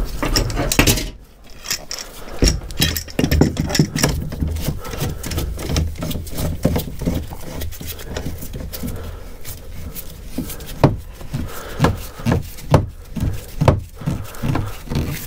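Steel F-clamps being fitted and screwed tight on a laminated wooden frame: irregular metallic clanks and wooden knocks as clamp bars and jaws bump the timber, coming thicker and sharper in the last few seconds.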